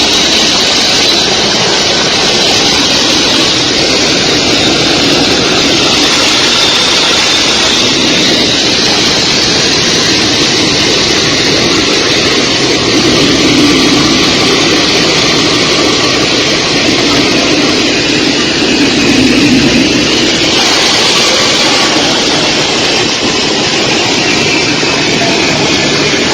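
Jet aircraft engines running loud and steady, with a high turbine whine that slowly drifts lower in pitch.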